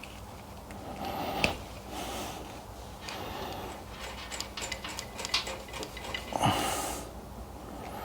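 Electrical wires being fed and pulled through a motorcycle frame tube by hand: irregular light clicks and rustling, with a sharper click about a second and a half in, a run of clicks around the middle, and a short breathy burst near the end.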